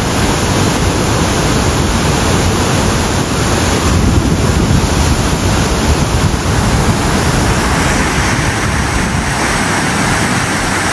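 A waterfall's steady rushing water, a loud even noise with no let-up; its tone turns a little brighter after about seven seconds.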